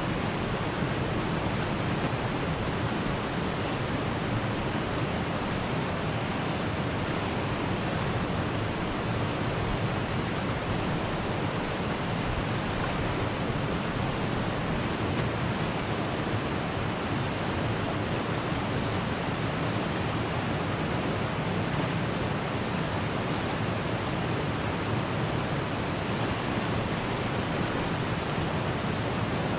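Steady rushing of flowing stream water, an even continuous hiss that does not change.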